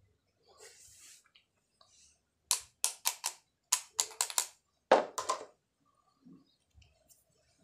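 Screwdriver clicking and tapping against a ball bearing from an electric wood planer being serviced. A quick run of sharp metallic clicks comes in three clusters, the loudest about five seconds in.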